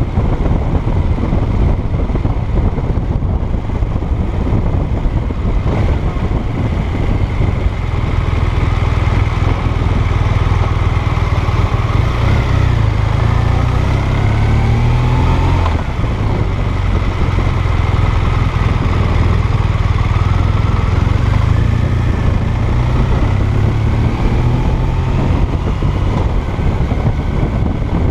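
Motorcycle engine running under way, heard from the rider's seat with steady road noise. The engine note rises several times in steps near the middle, as the bike accelerates.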